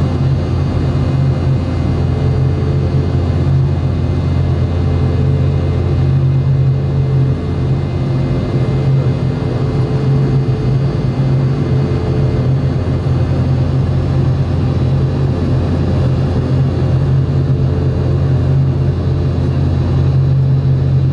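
Steady jet-engine cabin noise of a Boeing 717-200's BMW Rolls-Royce BR715 turbofans, heard from inside the passenger cabin: a strong, even low hum under a constant hiss, with no change in pitch.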